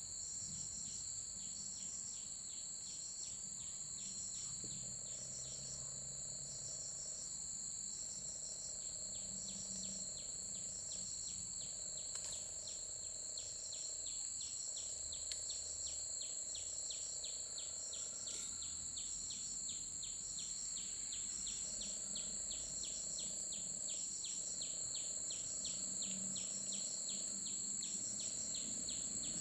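Insect chorus: a steady high-pitched drone with a pulsed chirping in short groups about once a second and a fast light ticking beneath.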